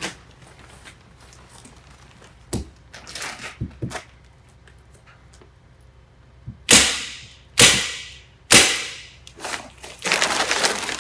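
Hand staple gun firing staples through a plastic airtight membrane into a timber stud: three loud, sharp snaps about a second apart, each dying away briefly, then a fainter fourth. Lighter clicks come earlier as the membrane is handled, and it crinkles and rustles near the end.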